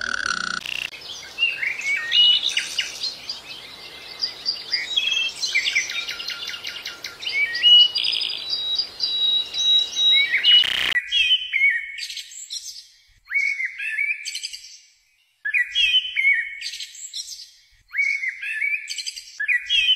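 A flock of Gouldian finches chirping and twittering densely over a light hiss. About eleven seconds in the sound cuts to short clusters of high, falling chirps every couple of seconds, with silence in between.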